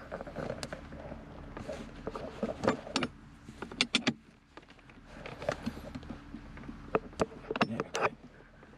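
Two spanners working the threaded adjuster nuts on a Jaguar XK8's gear selector cable, loosening them off: scattered sharp metallic clicks and clinks of the tools on the nuts.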